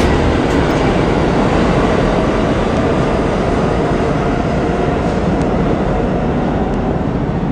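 New York City subway train running, a loud steady rush of wheel and rail noise that eases off slightly toward the end.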